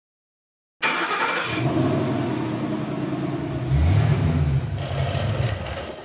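A car engine starting and revving. It starts suddenly about a second in and swells to a louder rev near the middle, then fades out near the end.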